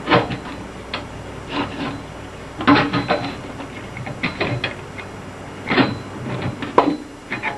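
Small crescent wrench clicking and scraping on the supply lines' compression nuts at the shutoff valves as they are tightened. The sounds are irregular short metal clicks and knocks, about a second apart.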